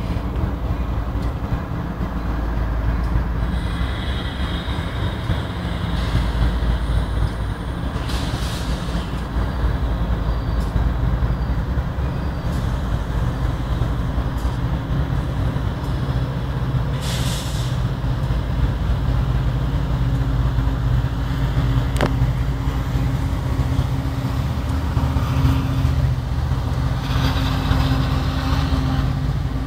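BNSF diesel-electric freight locomotives running as a loaded double-stack container train rolls by, their engine drone growing stronger in the second half. Two short hisses of air come about 8 and 17 seconds in, with a sharp click a little after 20 seconds.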